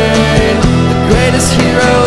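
Rock-style band music with a steady drum beat and sustained instrumental notes, with no clear lyrics: an instrumental stretch of the song.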